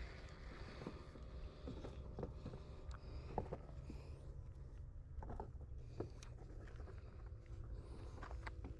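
Low rumble of wind on the microphone, with scattered faint clicks and knocks from handling a fishing rod and spinning reel.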